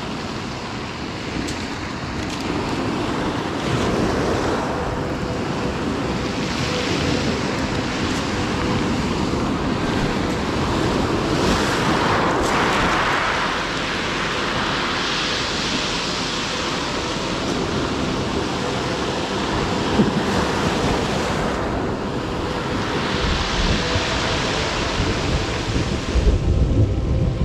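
Sea surf breaking and washing up a pebble beach, the noise swelling and easing every few seconds as each wave comes in. Wind buffets the microphone, gusting in low rumbles near the end.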